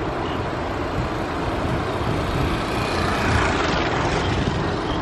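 Outdoor road noise with wind rumbling on the microphone, and a passing vehicle on the road swelling and fading about three seconds in.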